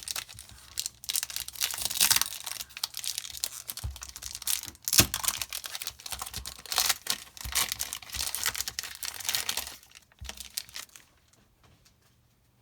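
Magic: The Gathering booster pack's foil wrapper being torn open and crinkled, in a run of uneven rustling bursts that stops about a second before the end.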